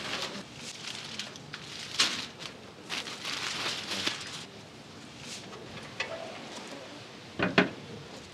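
Aluminium foil crinkling and rustling in irregular bursts as foil-wrapped meat is handled and set down on a smoker's steel grate, with a few light clicks and one short, sharp knock near the end.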